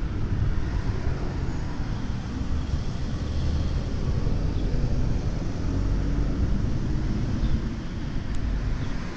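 Street ambience: a steady, low rumble of road traffic.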